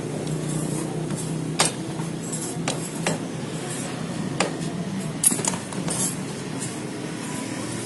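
Small metal parts clinking and tapping together as they are handled, about seven sharp clicks spread unevenly, over a steady low hum.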